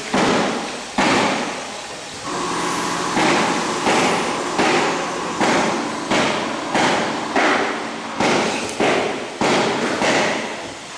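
Pneumatic liquid filling machine cycling: a sharp hiss of compressed air with each stroke, repeating about every two-thirds of a second, over a steady hum that starts about two seconds in.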